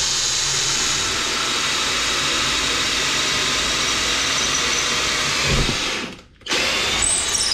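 HOTO 12V brushless cordless drill/driver boring into a wooden board with an 8 mm wood drill bit. It runs steadily for about six seconds, stops briefly, then runs again near the end.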